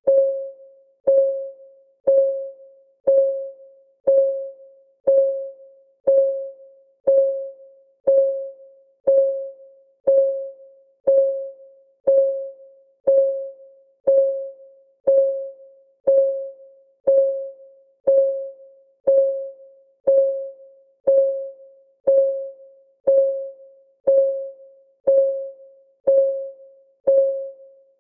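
Countdown timer's clock-ticking sound effect: one tick per second, each a short, clear-pitched note that dies away quickly.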